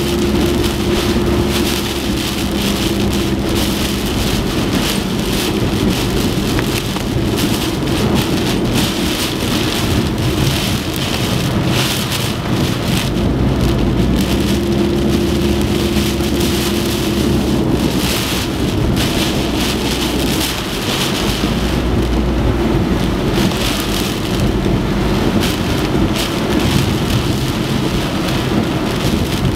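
Typhoon rain and wind: a dense, steady rushing of heavy rain with a low rumble beneath it. A faint low hum comes in twice, near the start and around the middle.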